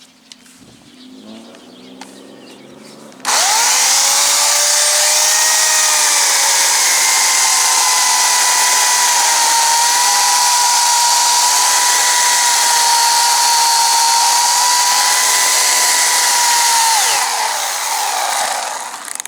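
Portland 14-inch electric chainsaw starting with a sudden jump about three seconds in, its pitch rising and then holding a steady high whine while it cuts wood, before slowing and winding down near the end. The chain is dull and not yet sharpened.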